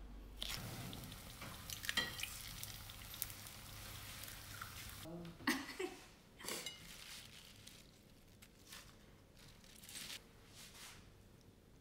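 Utensils working food in a glass bowl: a soft steady scraping hiss for the first few seconds, then scattered light clinks and the rustle of salad leaves being tossed.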